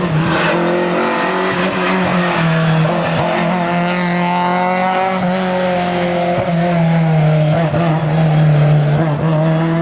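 Historic rally car's engine running hard at high revs, its pitch rising and falling as the car is driven through the stage.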